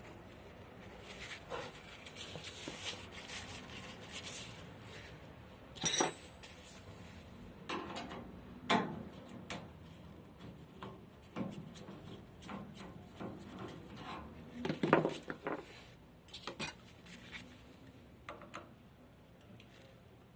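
Metal tools and small metal parts clinking, knocking and scraping as an oil burner is worked on. A few seconds of scraping early, then one sharp ringing metal clink about six seconds in, the loudest sound, followed by scattered clinks and knocks with a cluster around fifteen seconds.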